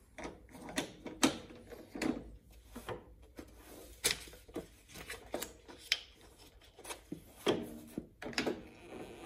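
A stack of paper being set down, slid and knocked into place on the table of an electric paper guillotine, heard as a string of irregular knocks, taps and rustles, with clicks from handling the manual clamp's crank handle.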